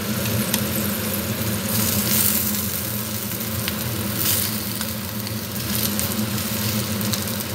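Bread, egg and melted cheese sizzling in a frying pan, with a few light clicks as a spoon works in the pan, over a steady low mechanical hum.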